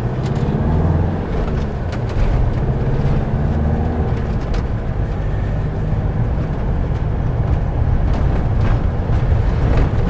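Motorhome engine and road noise heard inside the cab while driving round a roundabout. The engine pitch rises and falls in the first couple of seconds, then settles to a steady low hum under the tyre noise.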